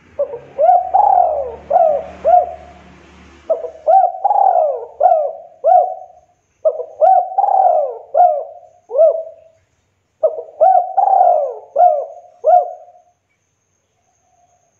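Spotted dove cooing: four phrases of quick coo notes that each rise and fall in pitch, with a short pause between phrases.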